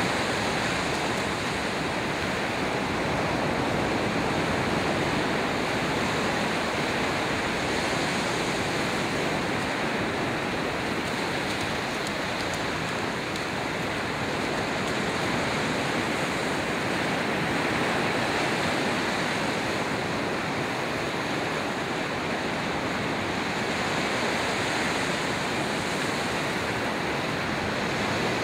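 Ocean surf breaking on a sandy beach: a steady rush of small waves, swelling a little every several seconds as each wave breaks.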